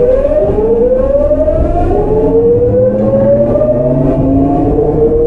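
Tokyu 9000 series train's early Hitachi GTO-VVVF inverter whining as the motors accelerate. Several tones rise steadily in pitch over the low rumble of the running train.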